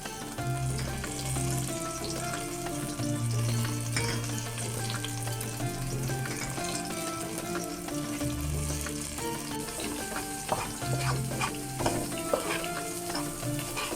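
Food frying and sizzling in a pan while it is stirred, with a steady hiss and utensil clicks that come more often in the last few seconds.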